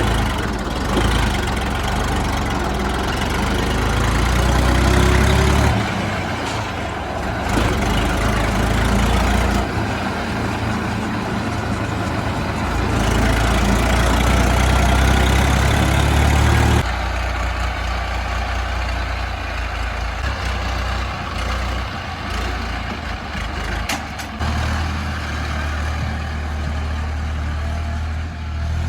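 Heavy diesel engines of earthmoving and farm machinery running. The sound changes abruptly several times, shifting between louder and lighter engine noise.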